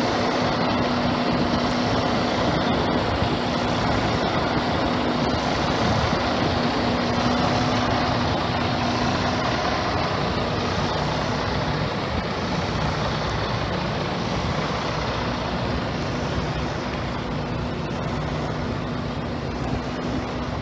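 Heavy diesel truck engine idling steadily: a constant rumble with a low, even hum.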